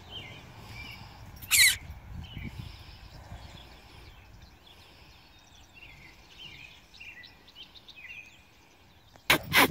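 Birds chirping and singing in the background, broken by a short, loud burst of noise about a second and a half in and two more in quick succession near the end.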